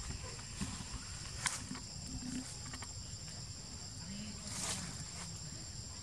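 Forest ambience: a steady high-pitched insect drone over a low rumble, with two short sharp clicks, one about a second and a half in and another near five seconds.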